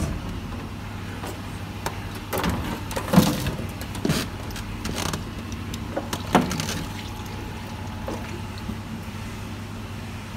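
Clunks, knocks and scrapes as a plastic pipe with its push-fit fittings is unhooked and lifted off a pressure-test rig. The loudest knock comes about three seconds in, and a steady low hum runs underneath.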